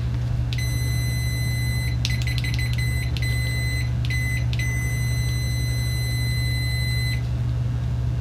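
Sanwa DCM60R clamp meter's continuity beeper sounding: a high-pitched beep starts about half a second in, is broken into a quick run of short chirps in the middle, then holds steady until it stops near the end. At its maximum continuity volume it is pretty low, only about 56 dBA. A steady low hum runs underneath.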